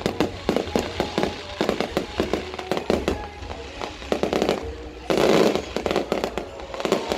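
Aerial fireworks shells bursting in rapid, overlapping bangs and pops, with a louder, denser stretch of crackling about five seconds in.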